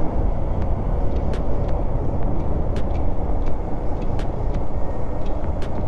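Motorcycle riding along at steady speed: a continuous rumble of engine, wind and tyre noise, deepest in the low end, with a few faint ticks scattered through it.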